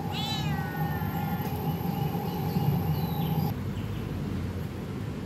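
Tabby kitten meowing: one long call that falls in pitch, then a fainter one. A steady low hum runs beneath and stops about three and a half seconds in.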